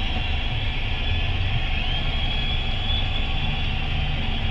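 Steady low rumble of a car's engine and the street traffic around it, heard from inside the car, with a faint thin high tone that steps up slightly about a second and a half in.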